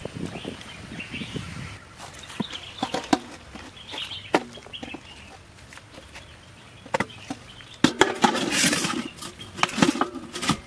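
A wooden spoon knocks and scrapes against a steel bowl and a clay grinding bowl as boiled greens are scooped across: scattered single knocks, then a busier clatter of scraping near the end.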